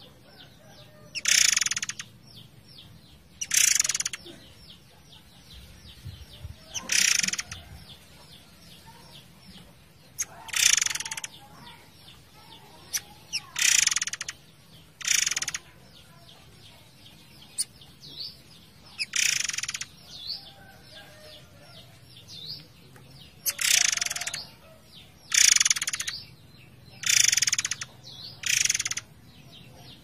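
A murai air songbird singing in short, rapid, rattling bursts of notes, about ten of them, coming one to four seconds apart, with softer chirps in between.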